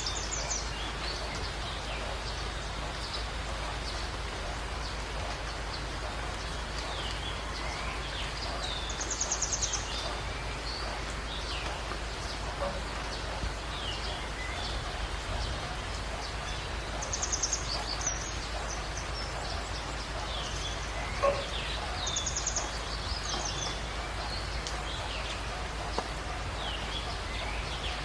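Birds calling in a jungle dawn chorus over a steady background hiss: many short chirps, with a high, rapid trill three times. A single sharp tap comes about three quarters of the way through.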